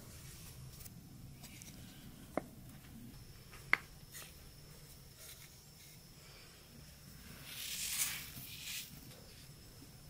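Quiet handling sounds at a metal mixing bowl: two small sharp clicks a little over a second apart, the second with a short ring. About eight seconds in comes a brief hissing rustle, dry granules sprinkled from the hand into the bowl of flour.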